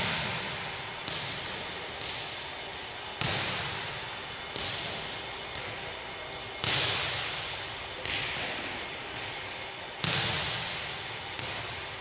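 Volleyballs being struck and bouncing on a hardwood gym floor: sharp thumps every second or two, each ringing on in the long echo of a large, empty gym.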